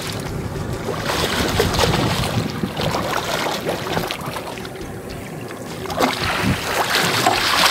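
Irregular splashing as a hooked silver salmon thrashes at the water's surface beside the boat, over steady boat and water noise.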